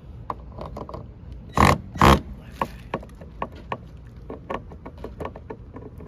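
Cordless drill-driver run in two short bursts about a second and a half in, snugging up door hinge screws, with scattered light clicks and taps around them.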